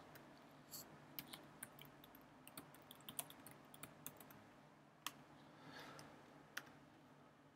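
Faint typing on a computer keyboard: irregular, scattered keystrokes.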